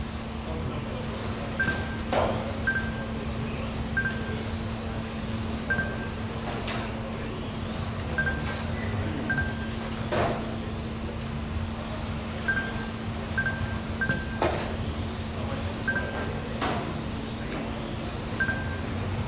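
Short electronic beeps from the race timing system, sounding at irregular intervals of about half a second to a second as 1/12-scale electric RC cars cross the timing line, over the whirr of the cars' electric motors with a few louder passes and a steady low hum.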